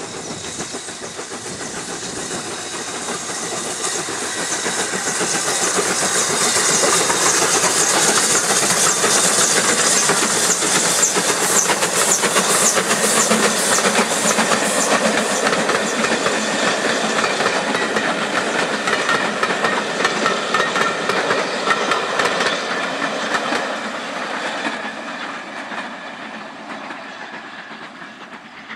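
Two steam locomotives, BR Standard 7MT 'Britannia' Pacific 70000 leading, double-heading a passenger train past: the exhaust beats and steam hiss grow louder as they approach, then the coaches' wheels clatter over the rail joints as the train goes by and fades away near the end.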